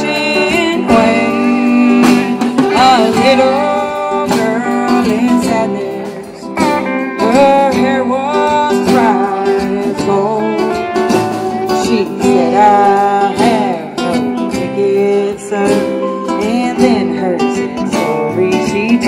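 Live country band playing a song: a woman singing into a microphone over upright bass and electric and acoustic guitars.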